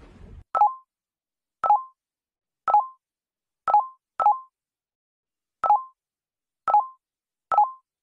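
A series of short electronic beeps, eight of them, mostly about a second apart with two close together midway. Each is a brief tone that dies away quickly, with silence between.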